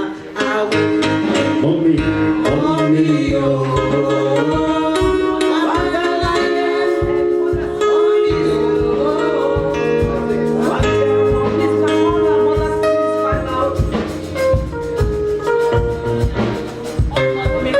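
Music playing with guitar, bass and drums, a steady beat.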